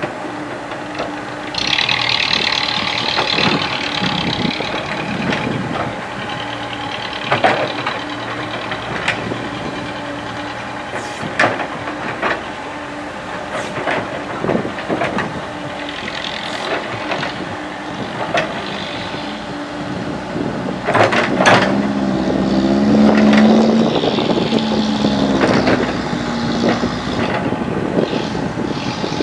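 Komatsu PC70 hydraulic excavator at work, its diesel engine running steadily. Sharp knocks and clanks from the bucket come now and then, with a hiss about two seconds in. The engine note swells louder and wavers from about two-thirds of the way through.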